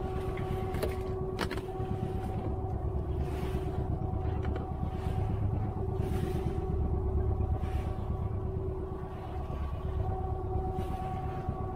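Fishing boat's engine running with a steady low rumble and a steady hum over it, with a couple of sharp knocks about a second in.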